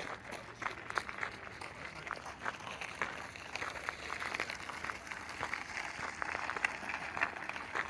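Walking footsteps crunching on a gravel path, a steady series of short crunches.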